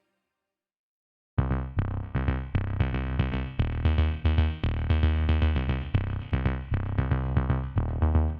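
Background electronic music with a drum-machine beat and synthesizer, starting suddenly about a second and a half in after a short silence.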